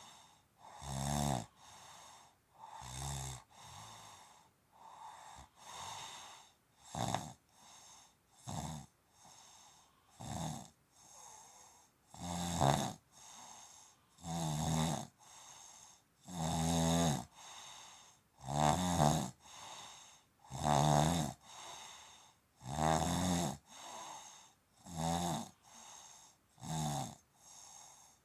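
Snoring in a steady rhythm: a loud, rattling snore about every two seconds, with softer breaths between.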